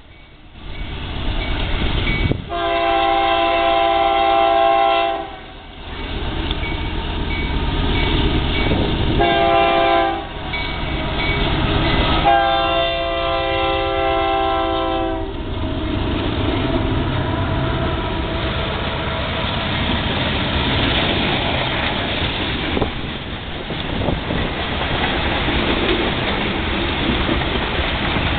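Union Pacific diesel freight locomotive approaching a grade crossing and sounding its air horn three times: a long blast, a short one, then another long blast. Its engine and a string of covered hopper cars then rumble steadily past at close range.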